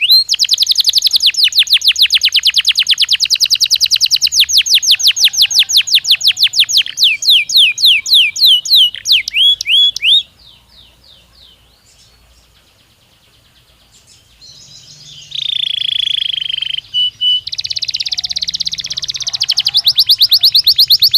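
Belgian canary singing: long, fast trills of rapidly repeated high notes that slow into separate sweeping notes, then break off for about four seconds before the song resumes with a short held tone and another fast trill.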